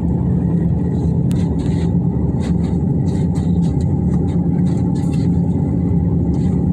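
Steady rumbling hum inside a cabin of a Swiss-built aerial jig-back tram as it runs along its cables, with a few faint light clicks.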